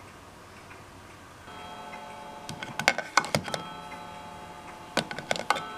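Quick plastic clicks and knocks in two short clusters as a flip phone is slid into a 3D-printed plastic holster. From about a second and a half in, a steady chime-like ringing tone of several notes sounds under them.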